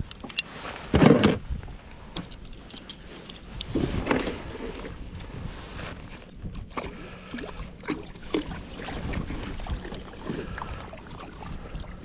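Water splashing and sloshing around a sea kayak, in uneven swells with scattered knocks and clicks from the hull and gear; the loudest splash comes about a second in.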